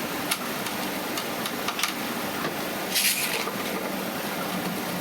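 A small screw being turned out of a laptop's LCD hinge with a hand screwdriver: faint clicks and scrapes, with a short rustle about three seconds in, over a steady background hum.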